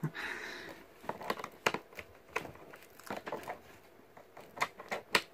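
Irregular small clicks and crackles of something being handled close to the microphone, after a short breathy hiss at the start.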